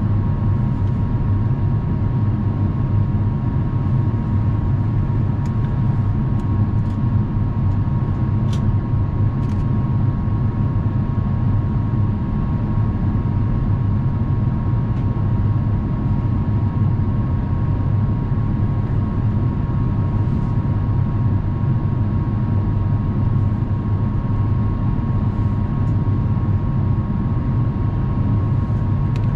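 Steady in-flight cabin noise of an Airbus A350-900 heard at a window seat beside the wing: a low rumble of airflow and its Rolls-Royce Trent XWB turbofans, with a steady mid-pitched hum over it.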